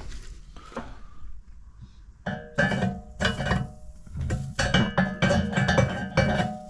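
Guitar music with a regular strummed beat, coming in a little over two seconds in; before it only a few faint clicks.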